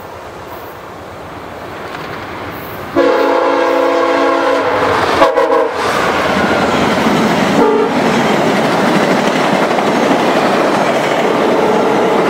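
A VIA Rail passenger train passing at speed. The noise grows as it approaches, then about three seconds in the locomotive horn sounds a two-second blast, followed by two short blasts. After that comes the loud, steady noise of the cars going by.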